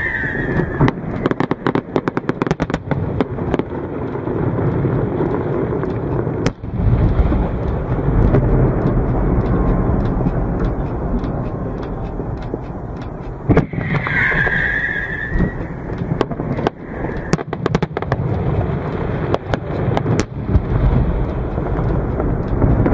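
Fireworks going off: rapid crackling pops and repeated low booming bursts.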